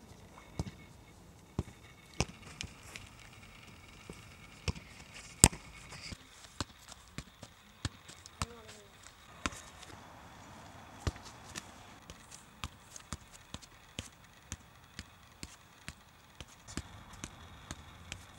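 A football being kicked and juggled on grass: short, sharp thuds of foot or knee on the ball, irregular, about one or two a second, with one much louder kick about five seconds in.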